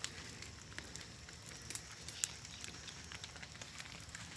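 Small wood fire crackling softly, with scattered sharp pops; the loudest pop comes about two seconds in.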